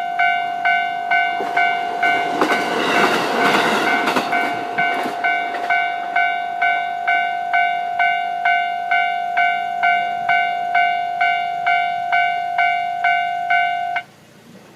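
Japanese level-crossing warning bell ringing steadily at about two dings a second while a train passes over the crossing. The train's rumble and wheel noise swell over the bell a couple of seconds in and fade within a few seconds. The bell cuts off suddenly near the end as the crossing clears.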